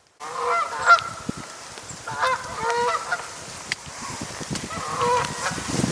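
Geese calling, with repeated honking calls in clusters, and a brief sharp click about a second in.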